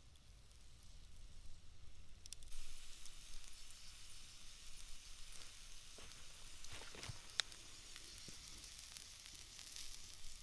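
Lamb ribs on a stick sizzling over campfire embers, with small crackles and pops of fat. The sizzle grows louder about two and a half seconds in, and there is one sharp pop about seven seconds in.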